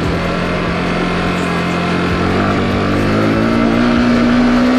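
Yamaha R15 M motorcycle's single-cylinder engine running steadily, then revving up a little past halfway through and holding the higher pitch.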